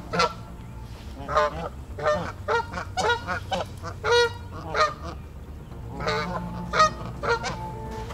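Canada geese honking: a series of about a dozen short, repeated honks, with a brief lull a little past the middle.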